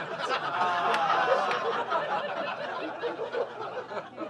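Audience laughing and chuckling at a punchline, dying down toward the end.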